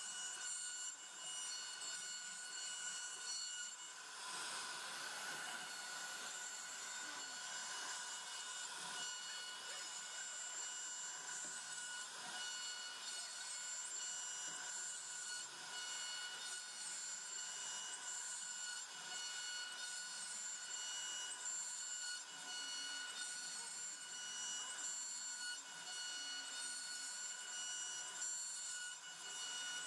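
CNC router spindle running with a steady high-pitched whine while its bit routes a panel groove into a wooden door, with the hiss of the bit cutting through the wood.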